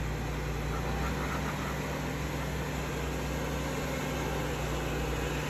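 Lifted Jeep Wrangler's engine running at low, steady revs, a constant low hum, as it crawls slowly up a steep rock chute.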